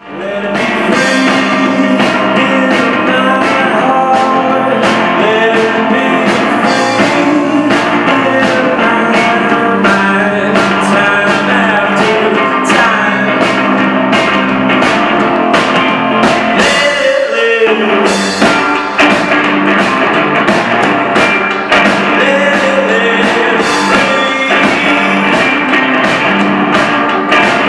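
Live rock-and-roll band playing: electric guitar and a man singing over a steady, driving beat on floor toms and bass drum struck with sticks. The low end drops out briefly about two-thirds of the way through before the full band comes back.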